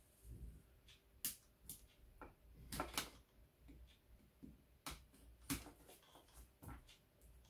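Faint, irregular light clicks and scrapes of a small hand tool working at a hinged box, trying to pry it open.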